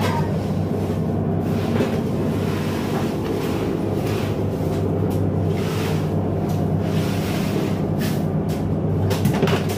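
A fishing trawler's inboard engine running steadily below deck, with a low, even drone. Scattered knocks and scrapes come on top of it, and they cluster near the end.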